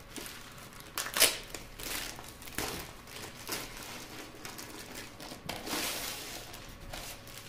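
Clear plastic wrapping crinkling and rustling as a rolled diamond-painting canvas is unwrapped and unrolled, in irregular bursts with a loud crackle about a second in.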